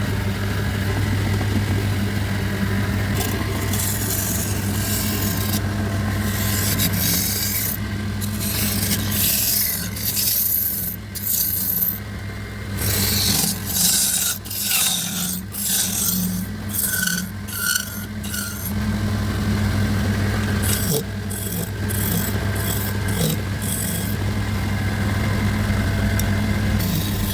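Wood being scraped in repeated, irregular rasping strokes over the steady hum of an electric motor running.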